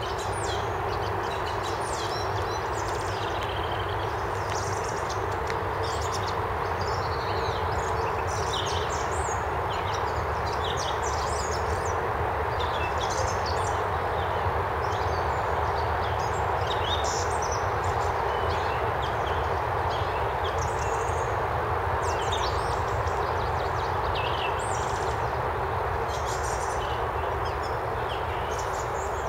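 Many small songbirds chirping and singing in short, overlapping calls throughout, over a steady background rush and low hum.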